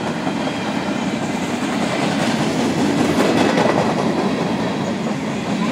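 Freight train of covered hopper cars rolling past close by: a steady, loud rumble with the wheels clattering on the rails.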